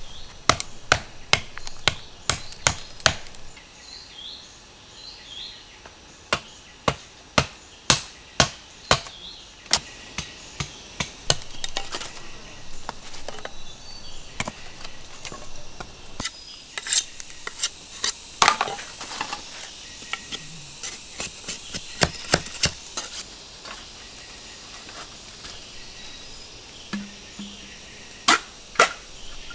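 Machete blade chopping into a green bamboo culm: sharp knocks coming in irregular runs, several a second, with short pauses between runs.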